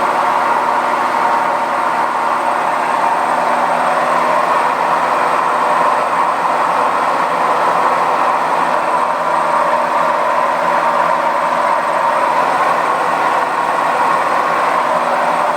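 Zanussi washing machine running with a loud, steady noise that does not change: the sound of a fault the owner says needs a £170 replacement part.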